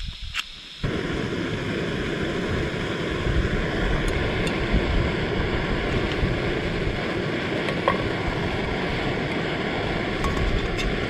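Primus canister gas stove lit with a match: a short strike, then about a second in the burner catches and burns with a steady rushing noise. A few light clinks come from the metal cooking pot being set on the stove and its lid being fitted.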